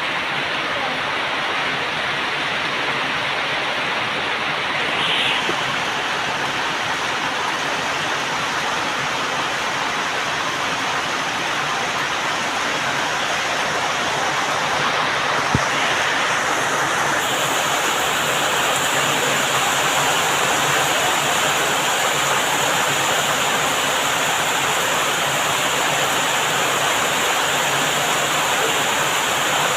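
Heavy rain falling steadily as a dense, even hiss, growing a little heavier a little past halfway, with one brief sharp tick about halfway through.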